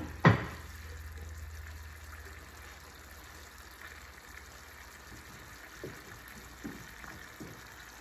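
Ground pork sizzling steadily in a hot wok just after a spoonful of Shaoxing wine has gone in. Two sharp knocks at the very start, then a few light taps near the end.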